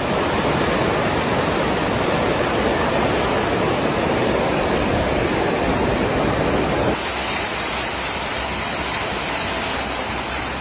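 Loud rushing water, a steady roar of torrent or floodwater with no pitch to it. About seven seconds in it cuts abruptly to a slightly quieter rush of water.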